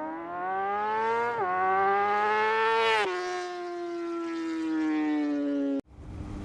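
A high-revving engine accelerating through the gears. Its pitch climbs, drops at a shift about one and a half seconds in, climbs again, and drops at a second shift about three seconds in. It then sinks slowly as it backs off, and cuts off abruptly near the end, where wind and engine noise from the ride take over.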